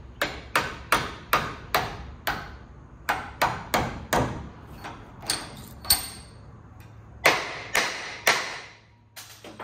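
Hammer striking steel in a run of about fifteen sharp blows, in uneven groups with short pauses, some leaving a brief metallic ring, while shaping steel hook eyes.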